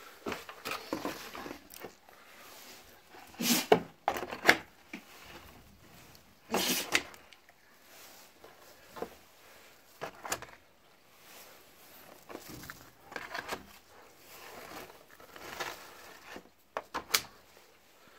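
Handling noises while eggs are gathered from a wooden nest box and set into a thin clear plastic egg pack: a string of irregular plastic crinkles and clacks with knocks on wood, loudest about four and seven seconds in.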